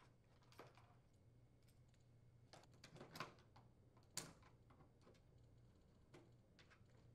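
Faint clicks and scrapes of a small flathead screwdriver working metal retaining rings off a plastic air damper control, with a sharper click about four seconds in; otherwise near silence.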